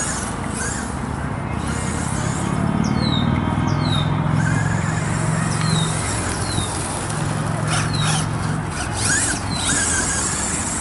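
Traxxas Rustler electric RC truck driving across grass: a steady hiss of motor and tyres, with a low hum that swells twice through the middle. A bird chirps a short falling note over and over.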